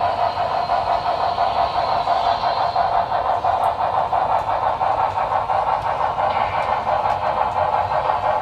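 Sound decoder of a Broadway Limited Paragon 3 HO-scale Texas & Pacific 2-10-4 steam locomotive playing an even, quick exhaust chuff through the model's small speaker as it runs. There are a few faint ticks.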